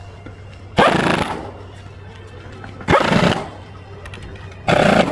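Pneumatic impact wrench fired in three short bursts, each about half a second, running down the socket-head bolts on the pump's nose, over a steady low hum.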